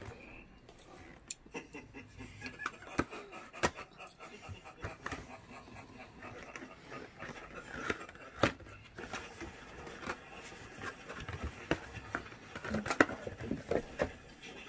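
Hands handling a cardboard product box: irregular taps, scrapes and knocks of cardboard as the box is opened and a tin can inside is slid out, with a sharp knock about eight seconds in and a cluster of knocks near the end.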